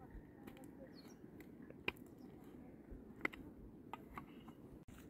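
A mattock striking stony soil: two sharp chops, about two seconds and three and a quarter seconds in, with fainter ticks of earth and stones between them.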